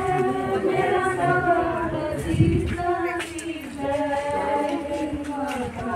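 A group of voices singing together in long, drawn-out notes, with a low bump about two and a half seconds in.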